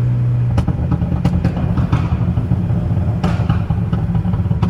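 2014 Ford Focus ST's turbocharged 2.0-litre four-cylinder engine running, with irregular sharp exhaust pops and crackles from its Stratified tune scattered over the steady engine note.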